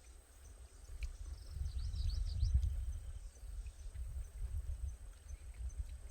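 Uneven low rumble of wind on the microphone, with a few faint, high chirps about two seconds in.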